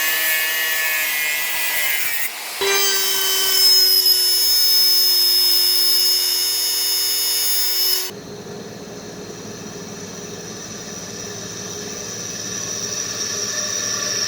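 Machine-tool cutting noise in three sections that change abruptly, as at cuts between clips. The middle section is a steady, high-pitched whine. The last section is noisier and quieter, and grows louder toward the end.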